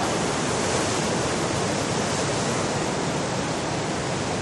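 Steady, even rush of very large ocean waves breaking and whitewater churning, from a swell with 30–40 ft wave faces.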